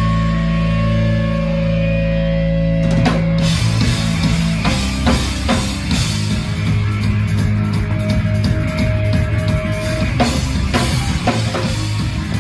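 Rock band playing live on electric guitars, bass guitar and drum kit. A held chord rings for about three seconds, then the drums come in and the full band plays.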